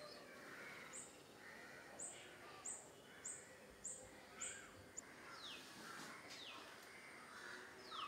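Several wild birds calling faintly. A run of about seven very short, very high notes comes every half second to second, then three falling whistles in the second half, over lower, rougher calls.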